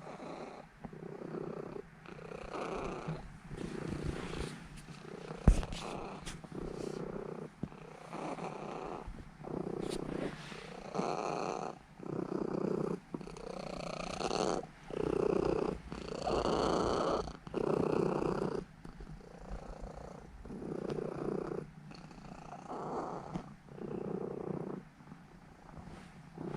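Norwegian Forest Cat purring close up, the purr swelling and fading with each breath about every one and a half seconds. A single sharp click about five seconds in.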